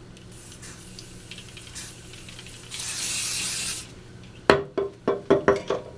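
A single burst of Cibu Pho Finish styling spray onto a section of hair, a hiss lasting about a second near the middle, after faint rustling of hair. Near the end, a quick run of sharp clicks and taps.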